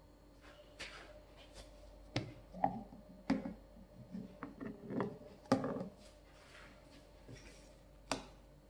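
Scattered plastic clicks and knocks as a blender's lid is handled and lifted off its plastic jar, with soft rubbing between. Near the end a metal spoon goes into the blended soybean mixture and taps the jar once.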